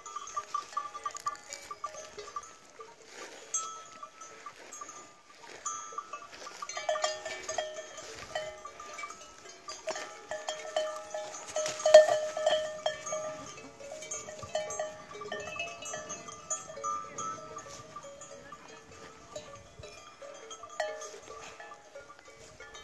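Bells hung on grazing cattle clinking and clanking irregularly at several pitches at once, loudest about halfway through.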